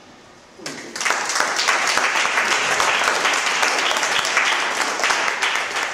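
Audience applauding, starting about a second in and tailing off near the end.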